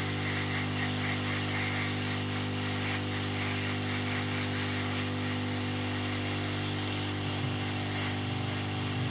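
Hot-air rework station's reflow gun running at low airflow: a steady motor hum made of several constant tones under an even rush of air, while it heats solder paste on a circuit board until the paste melts and flows.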